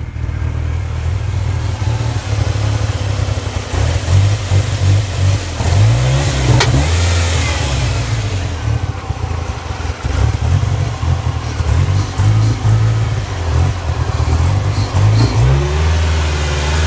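Ford Ranger 2.3-litre four-cylinder engine running rough, its speed rising and falling unevenly before settling near the end. It is the sputtering, bogging idle that new spark plugs, plug wires, coil pack, PCV valve and throttle position sensor and a cleaned MAF sensor have not cured.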